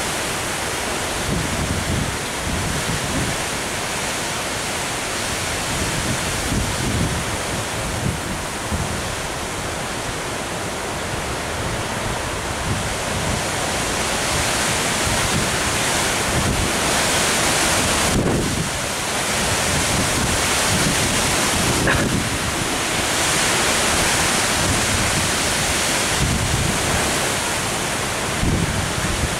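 Strong to stormy wind gusts rushing through the leaves of tall trees, with wind buffeting the microphone. The gusts grow stronger about halfway through.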